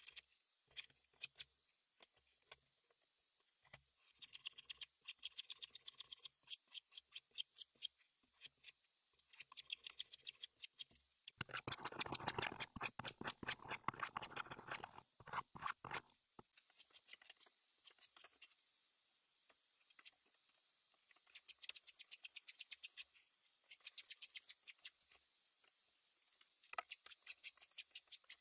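Metal bench plane shaving a wooden board in runs of quick, repeated strokes, loudest in a stretch about halfway through.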